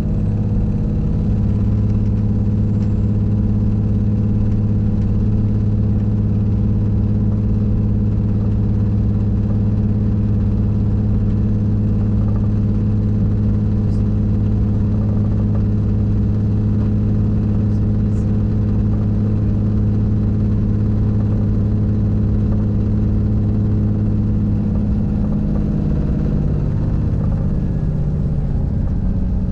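Regional train's diesel engine humming steadily, heard from inside the carriage, with a slight shift in pitch near the end.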